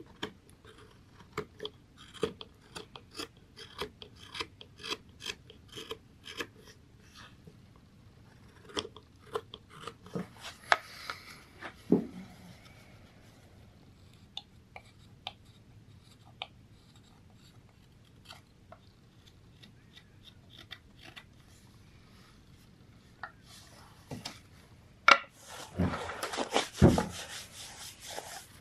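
Carving knife shaving thin curls from a green black walnut bowl: a quick run of short, crisp slicing cuts, about two or three a second at first, then fewer and further apart, as the last touch-up cuts on the nearly finished bowl. Near the end comes a louder rustle with a couple of knocks as the bowl is handled and set down on the wooden bench.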